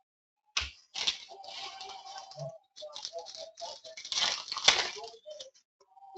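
Trading card packs and cards being handled: crinkling foil wrappers and papery rustles and clicks of cards being shuffled. The handling starts about half a second in, with the loudest crinkling a little past four seconds in.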